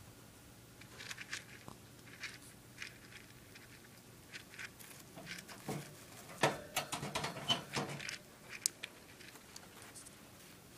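Dwarf hamster scrabbling about its cage: irregular light clicks and scratches of small claws, coming in scattered clusters and busiest a little past the middle.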